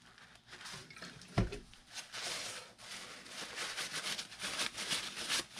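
Paper towel damp with isopropyl alcohol rubbing and rustling against a dirty RC shock body as it is wiped clean, with a single knock about a second and a half in.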